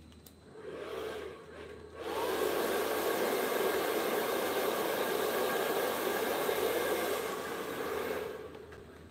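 A small electric motor in a handheld tool or blower runs briefly about half a second in, then starts again about two seconds in, spins up and runs steadily with a whirring hiss for about six seconds before winding down.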